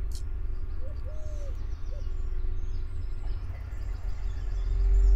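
A steady low rumble, with a few soft cooing calls from a bird about a second in.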